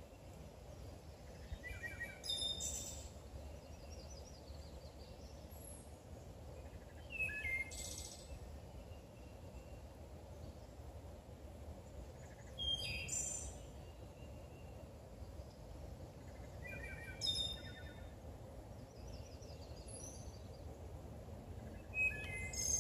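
A songbird singing a short phrase five times, about every five seconds, over a steady low background rumble.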